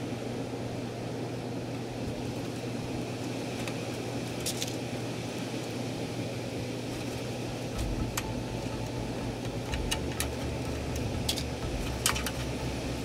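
A screwdriver driving screws into a PC power supply's metal housing, fixing it to the case, giving a few light, scattered metallic clicks over a steady background hum.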